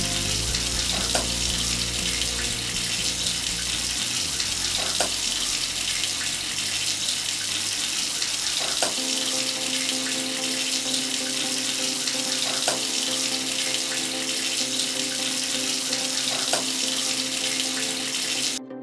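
A thin stream of water from a small tube pouring steadily onto a toy tractor and splashing into a shallow tray of water. It runs as a steady hiss and cuts off suddenly near the end.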